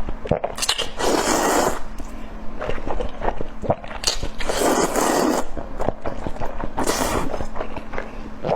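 Close-miked eating sounds: many short wet mouth clicks of chewing, with three longer rough noisy bursts, about a second in, in the middle, and about seven seconds in.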